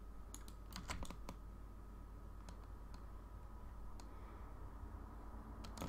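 Faint, scattered clicks at a computer, about ten in all, over a steady low hum.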